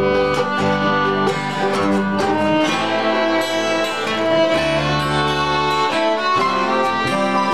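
Acoustic string trio of fiddle, mandolin and upright bass playing an instrumental tune, the fiddle carrying the melody in held, bowed notes over plucked bass and mandolin.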